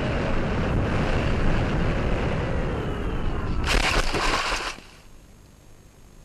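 Mini Talon model plane's brushless motor and propeller running with rushing air noise as it flies low, faint gliding whine tones over it. Nearly four seconds in, a loud rushing burst as the plane ploughs into tall grass on landing, cutting off a second later to a quiet hiss once it stops.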